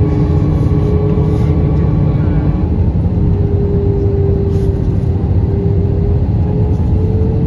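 Airbus A320 cabin noise during descent, heard from a seat over the wing: a steady loud rumble of the jet engines and rushing air, with a steady hum over it that rises slightly near the end.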